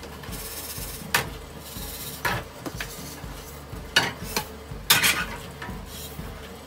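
Frying pans knocking and scraping on a gas hob's pan supports, a few sharp clanks over a steady hiss, with dry-roasted coriander seeds rattling as a pan is lifted and the seeds are tipped into a plastic tub near the end.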